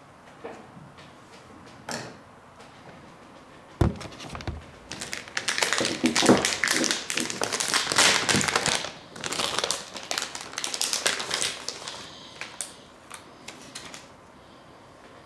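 Hard objects being handled: a few light clicks, a sharp knock about four seconds in, then several seconds of dense, rapid clicking and rattling that fades out near the end.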